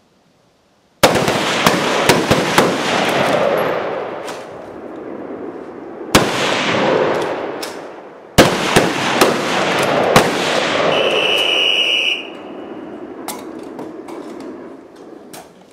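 Rifle fire from several shooters on a range: a sudden crackle of shots about a second in, then more clusters of shots with echo rolling between them. About eleven seconds in, a steady whistle blast of about a second, the range officer's long blast that ends the timed exposure, followed by a few fainter scattered shots.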